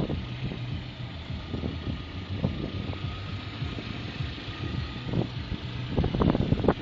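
Lada Priora's 21126 sixteen-valve engine idling hot, with an irregular knocking that comes and goes, strongest near the end. The engine was just rebuilt with new pistons and rings in a bored block, and the owner suspects the camshafts.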